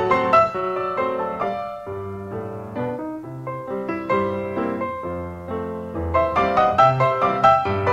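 Background music: solo piano playing a melody with chords, getting busier again about six seconds in.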